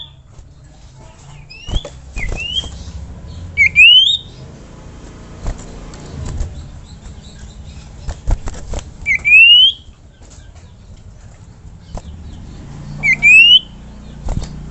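Sirtu (common iora) giving loud rising whistled calls, each a quick upward sweep, about five spread through, with a few sharp clicks between.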